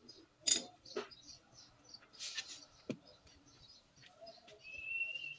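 A few sharp metal clinks and knocks as a Land Cruiser's front hub and brake rotor are handled, the loudest about half a second in and another near the three-second mark. A steady high whistle starts near the end.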